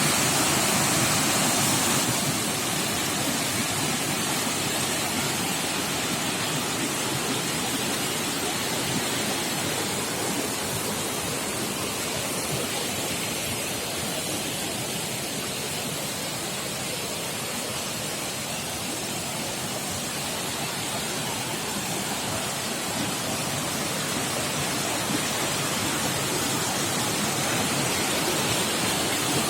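Steady, even rushing noise with no breaks or distinct events, slightly louder in the first two seconds.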